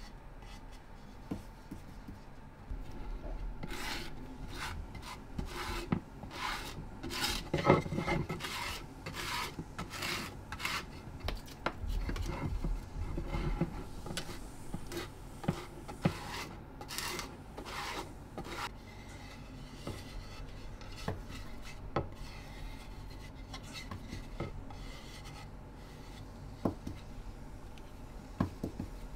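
Wooden spatula scraped in short, quick strokes across the gritty, powder-dusted surface of a wooden lacquerware plate, spreading a coat of lacquer. The rasping strokes come thick and fast through the first two thirds, loudest a third of the way in, then thin out to lighter rubbing.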